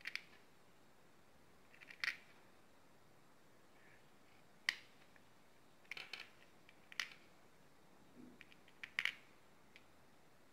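Small plastic fuse beads clicking as they are picked up and pressed onto the pegs of a plastic pegboard: short, light clicks, irregular, about one every second or two.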